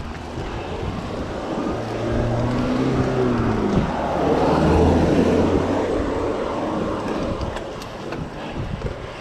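A car passing the bicycle: its engine hum rises, then drops in pitch as it goes by, and its tyre noise swells about five seconds in before fading. Wind rushes on the microphone throughout.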